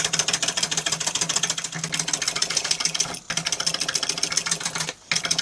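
Hand plane cutting shavings from the end of a wooden curtain pole in a fast, even run of strokes, with brief breaks about three seconds in and near the end.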